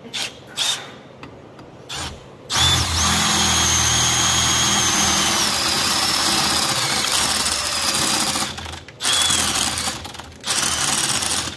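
Cordless drill with a step drill bit boring out a hole in a steel tab: a few short trigger blips, then a steady run of about six seconds whose whine drops slightly partway through, then a few short bursts near the end. The drill's battery is about dead.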